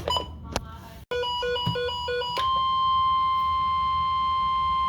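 A weather radio receiving a flash flood warning: a burst of quick beeps, about four a second, then the steady NOAA Weather Radio warning alarm tone of about 1050 Hz, held unbroken from midway on.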